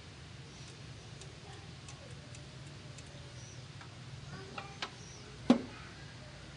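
A plastic wiring connector in a car's engine bay being handled and unplugged: a few light clicks, then one sharp snap about five and a half seconds in, over a low steady hum.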